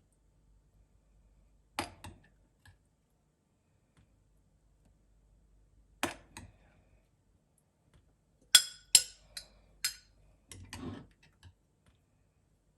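Separate knocks and clinks of small hard objects being handled, with a quick run of four sharp clinks about nine seconds in and a softer, longer scrape just after.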